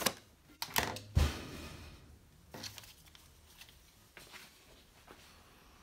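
Handling knocks and clicks as a sheet of sandpaper is fitted to an electric palm sheet sander and the sander is set on a steel welding table, with a heavier thump about a second in. The sander is not running.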